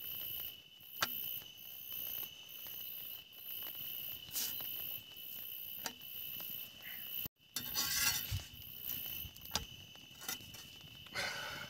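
Night insects chirping: a steady shrill tone with a higher chirp pulsing about twice a second. A few sharp clicks and two short rustles come through over it.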